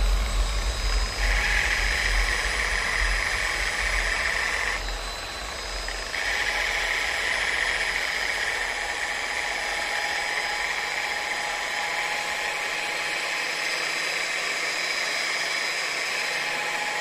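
Angle grinder with a backing pad running against the cured epoxy face of a wood-and-resin clock, a steady motor whine with rubbing noise. The sound briefly thins about five seconds in.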